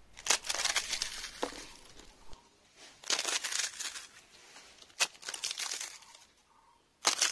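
Crisp deep-fried papads being broken by hand, crackling and crumbling apart in three bursts, with a fourth starting near the end. The sound shows they are fried fully crisp.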